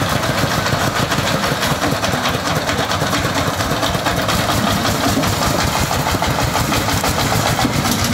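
Single-cylinder diesel engine of a homemade farm truck running steadily with a fast, even knocking beat.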